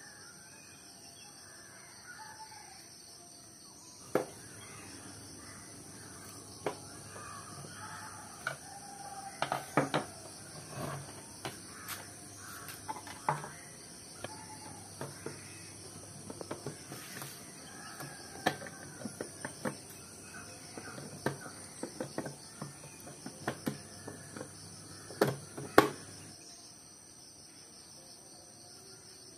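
Irregular sharp clicks and knocks of hand work on the plastic case of an LED emergency lamp, with the loudest near the end. Birds call in the background.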